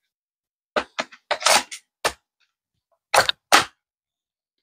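Zius BK1S battery-powered blaster firing: a quick string of sharp shots over about a second and a half, then two more in fast succession.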